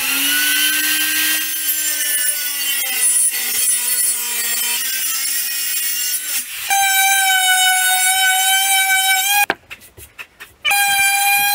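Circular saw cutting through a wooden butcher-block countertop, its motor pitch sagging slightly under load. After about six and a half seconds it changes to a higher, steady whine, stops briefly, then whines again near the end.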